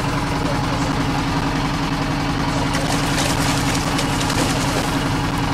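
A fishing boat's engine running steadily with an even low drone. About three seconds in, a hooked fish splashes and thrashes at the surface beside the boat.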